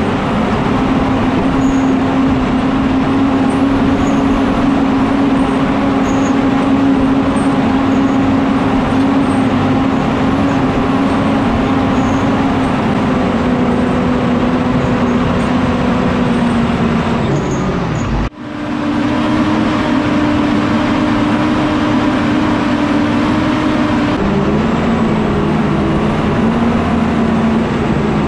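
Tigercat 610E skidder's diesel engine running steadily as the machine drives. The sound breaks off for an instant about two-thirds of the way through; after it the engine note sits a little higher, then steps lower a few seconds before the end.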